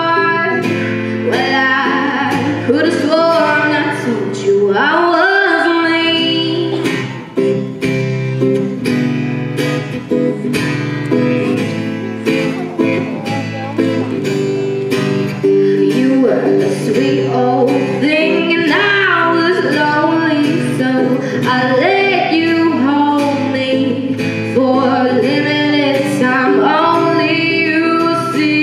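A woman singing a song to strummed acoustic guitar accompaniment.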